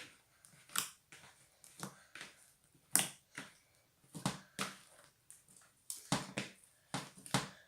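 Fluffy slime being kneaded by hand in a bowl, giving irregular sticky clicks and pops, about two a second.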